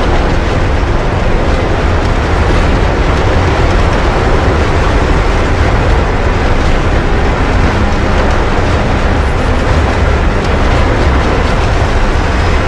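Roller coaster train running along the track at speed: a loud, steady rumble with a rapid clatter of wheels on the rails.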